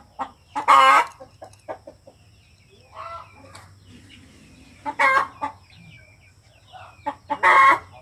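Birds calling: three loud, short calls a few seconds apart, with smaller chirps in between and a steady high tone underneath.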